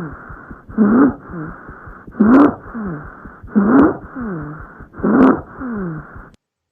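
Recorded lung sounds through a stethoscope: four breaths, about one every 1.4 seconds, each carrying low-pitched tones that rise and then fall: rhonchi, the sign of secretions in the airways. The recording cuts off suddenly about six seconds in.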